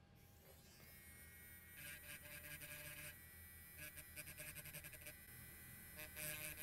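Battery-operated grinding pen's small motor whirring faintly, louder in three short spells as its tip grinds the solder mask off a motherboard's copper traces to bare them for a continuity check.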